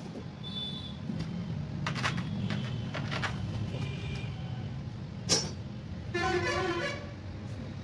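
Clicks and knocks from hand tools on a split AC indoor unit's pipe connections, the sharpest about five seconds in, over a steady low hum. A vehicle horn sounds briefly about six seconds in.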